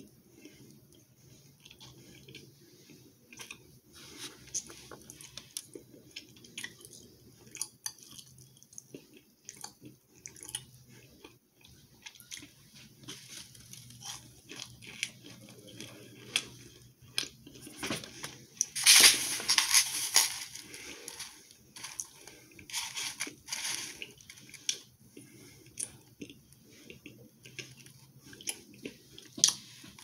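Chewing and crunching on chunks of microwave-baked cornstarch: irregular crisp crunches throughout, loudest in a dense burst a little past the middle.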